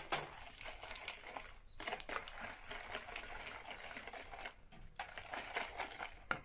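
Wire whisk beating an egg and crushed-walnut batter in a bowl: a fast run of clicks and scrapes of the wires against the bowl, pausing briefly twice.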